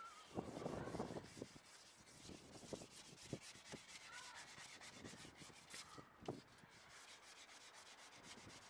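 Gloved hand rubbing over the body panel of a Nissan Figaro's rear wheel arch, strongest in the first second, then fainter strokes with a few light knocks.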